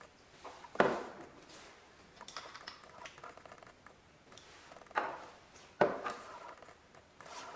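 Glass cosmetic bottles and their plastic lids and pumps being handled: a few sharp clicks and knocks, three louder ones about a second in and near five and six seconds, with lighter ticks between.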